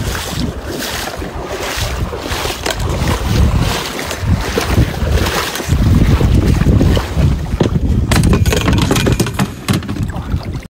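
Wind buffeting the microphone aboard a small boat on floodwater, a steady noisy rush with a low rumble that grows louder about six seconds in. It cuts off suddenly near the end.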